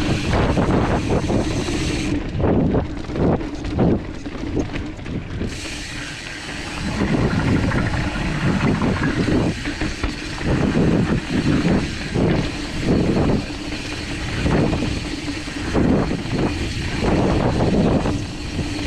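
A mountain bike rolls fast down a dirt singletrack. Wind rushes over the bike-mounted camera's microphone, the tyres roll on dirt, and the bike jolts and rattles over bumps at irregular intervals.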